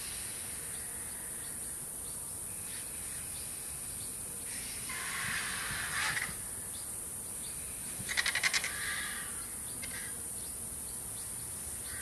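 Outdoor ambience with a steady high hiss, a harsh bird call about five seconds in, and a quick run of about six harsh bird notes about eight seconds in, the loudest sound.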